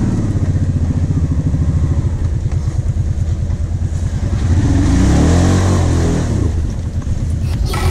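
ATV engine chugging at low revs as the quad pulls through mud. About halfway through it revs up for the climb, then eases off again.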